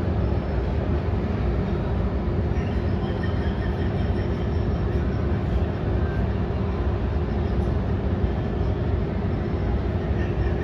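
Steady engine rumble heard inside an airliner's cabin as it moves on the ground, with a constant low hum.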